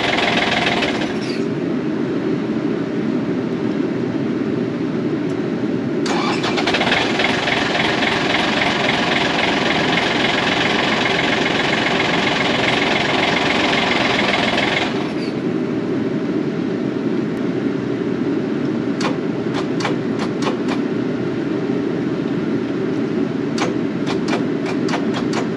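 Takeuchi excavator's diesel engine running, getting louder and harsher at the start and again for about nine seconds in the middle, then settling back. Near the end there is a quick series of sharp clicks over the running engine. This engine runs and then dies, which the mechanic cannot yet explain.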